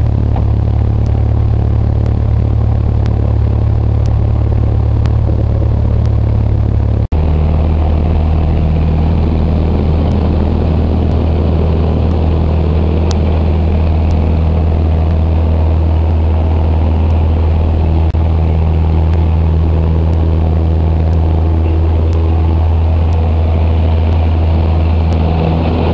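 Cessna 172's piston engine and propeller droning steadily, heard inside the cabin. The sound cuts out for an instant about seven seconds in, then the drone carries on at a different pitch.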